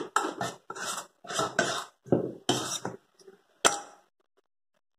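A metal utensil scraping the inside of a stainless steel mixing bowl holding ground chicken nugget mixture: a run of about six short scrapes.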